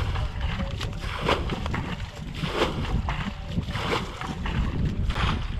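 Wind buffeting the microphone in a low rumble, with short bursts of water splashing about every second and a quarter as hands work in a muddy pond.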